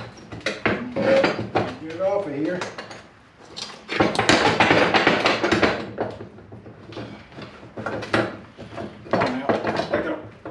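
Metal parts and tools clanking, knocking and scraping as they are handled, with a loud scraping stretch about four seconds in, and a man's voice briefly.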